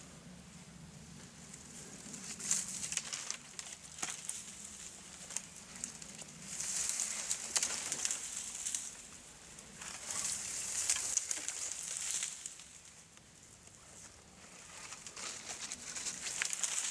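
Rustling and crackling of dry brush and leaves as someone moves about and handles gear, in four bursts a few seconds apart, with scattered small snaps.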